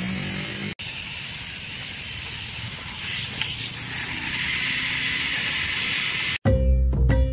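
A steady hiss that grows louder from about four seconds in, with one faint click in the middle. Near the end it cuts off and instrumental music with plucked strings begins.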